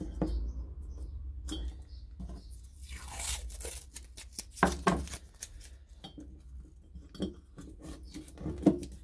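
Hands working at a glass jar and its nickel-strip electrodes: light clinks and knocks of glass and metal, and a short tearing rasp of adhesive tape about three seconds in.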